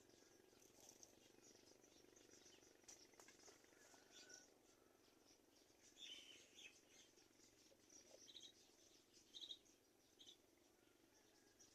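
Faint, high-pitched bird chirping, with three short calls about a second apart late on.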